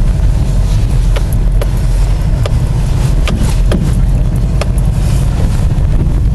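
Car driving, heard from inside the cabin: a loud, steady low rumble of engine and road noise, with scattered sharp knocks and rattles.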